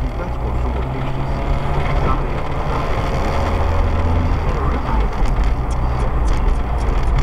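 Car driving along a street, heard from inside the cabin: steady engine and tyre rumble.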